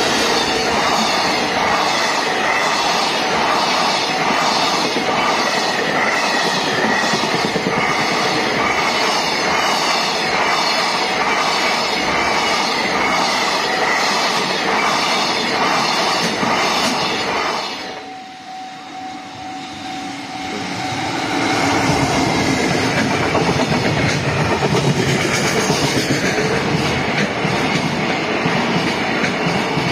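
Freight train hauled by an EF65 electric locomotive rolling past, its wheels clicking in an even rhythm over the rail joints. About two-thirds of the way through, the sound cuts off suddenly to a quieter stretch. It then builds up again as a second freight train passes.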